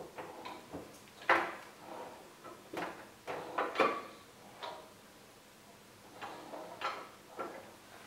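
Irregular knocks and clicks from the handwheel, belt area and a screwdriver of a walking foot sewing machine being worked on by hand, the loudest about a second in.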